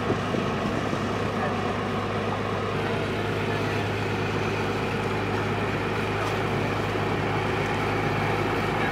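Passenger ship's diesel engines running steadily, a constant low drone that holds without change.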